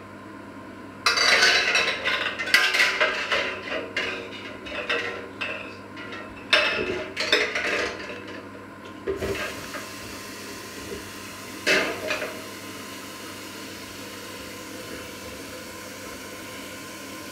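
Stainless steel pots, lids and a plastic jug being handled at a stove: several seconds of clattering knocks and metal clinks, then one more clink near the end. Under it a steady hiss sets in about nine seconds in.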